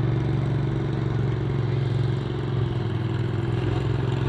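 Mud boat's engine running with a steady drone, dipping slightly about two seconds in.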